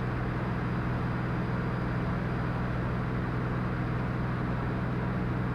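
Cirrus SR22T's turbocharged six-cylinder engine and propeller droning steadily, heard inside the cockpit.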